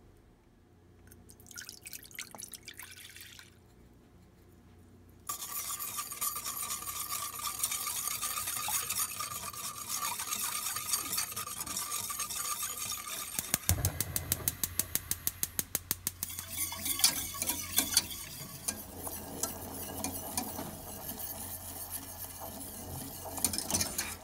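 Small wire whisk stirring liquid in a stainless-steel saucepan as agar and sugar are whisked in, the wires scraping against the pan. About 14 s in there is a fast, even run of clicking strokes, and a low hum comes in.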